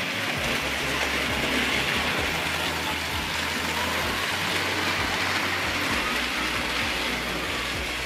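Vintage Märklin HO model trains running on metal three-rail track, the E18 electric locomotive (ref. 3024) among them: a steady whir of small motors and wheels on the rails, with a low hum underneath.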